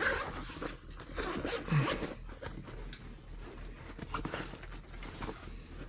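Zipper on a camo hunting backpack's pocket being worked, with several short zipping strokes and fabric rustling.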